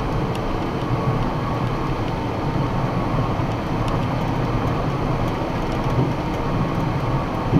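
Box truck at highway speed, heard from inside the cab: a steady low rumble of engine, tyres and road.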